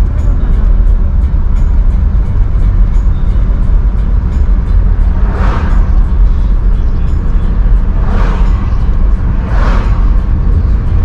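Steady low road and engine rumble inside a moving car's cabin, with background music that has a quick, even beat. Four short whooshes, about five, eight, nine and a half and eleven seconds in, fit oncoming cars passing.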